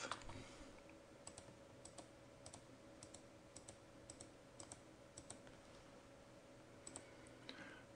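Faint computer mouse clicks, about ten of them, many in quick pairs, as points are clicked in one by one to draw a path, over quiet room tone with a low steady hum.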